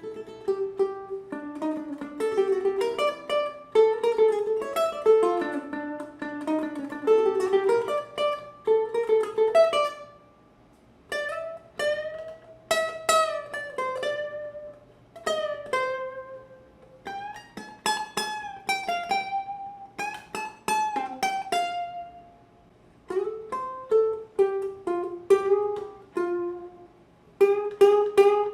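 Ohana TK-250GCE tenor ukulele strung with D'Addario EJ88T Nyltech strings, played solo as plucked melody notes over chords. A busy run of notes is followed by slower, ringing phrases, with brief pauses about ten and twenty-two seconds in.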